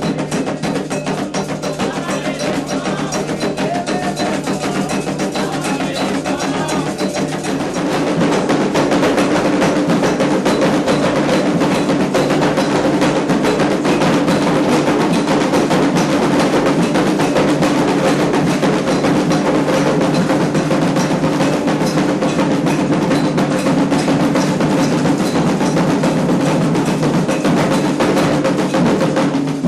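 Candomblé ritual percussion: atabaque hand drums with a struck agogô bell keeping a fast, dense rhythm. It gets louder about eight seconds in.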